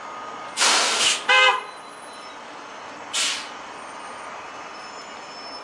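A bus lets out a loud hiss of compressed air, about half a second long, followed at once by a short horn toot. A second, shorter air hiss comes about two seconds later.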